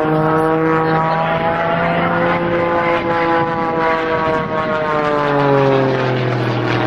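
Propeller-driven aerobatic airplane's engine droning overhead. Its pitch rises slightly and then sinks over the last couple of seconds.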